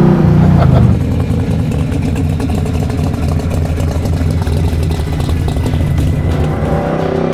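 The Mustang's big-block V8 (a Jon Kaase Boss 9 bored out to 521 cubic inches) is running loud and high at first. About a second in it drops to a lower, steady rumble.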